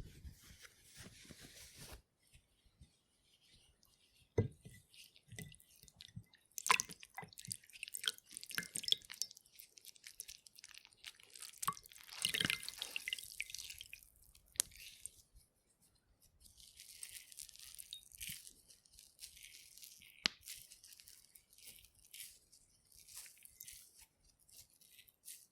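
Water-soaked fabric squeezed by hand: squelching and crackling, with water trickling and dripping out in several separate runs. The longest and loudest run comes about halfway through.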